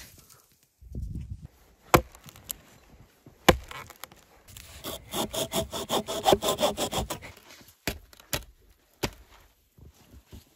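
Small hand saw cutting through a dead log, with about two and a half seconds of fast, even back-and-forth strokes in the middle. Before and after come a few single sharp knocks of wood.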